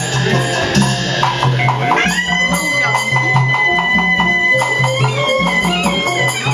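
Burmese traditional music accompanying a marionette show: a steady drum beat with percussion, joined about two seconds in by a high reed wind instrument that slides up into one long held note, then plays a more ornamented line near the end.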